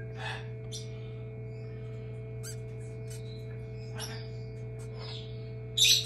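Newly hatched Moluccan cockatoo chick calling in short, high-pitched peeps, a handful spread over a few seconds, the last and loudest near the end. A steady low hum runs underneath.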